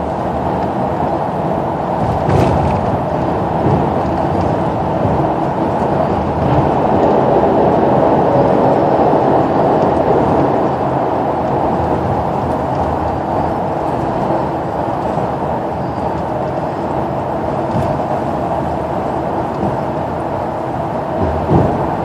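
Steady road and engine noise inside a moving coach bus: an even low rumble, with a couple of brief bumps.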